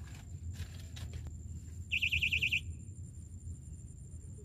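Electronic fishing bite alarm sounding a quick run of about ten high beeps, a little under a second long, about two seconds in: the signal that a fish is pulling line on one of the rods.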